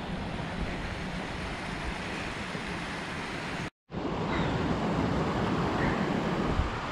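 Steady rushing noise, cutting out for a moment about four seconds in and then going on a little louder.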